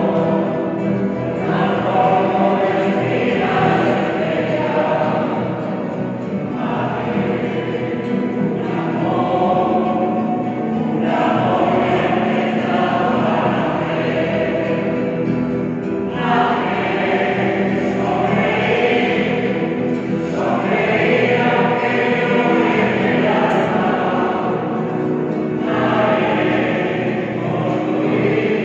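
A choir singing a hymn to acoustic guitar accompaniment, in phrases of about five seconds with short breaths between them.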